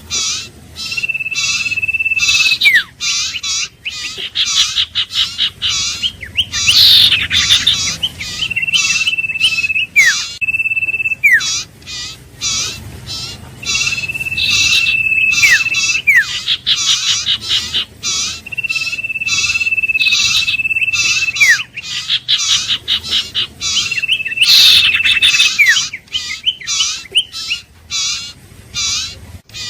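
Iora calling: long, level whistles, each held for about a second and a half and ending in a quick downward slide, repeated every few seconds. They sit over a constant run of rapid, sharp chirps.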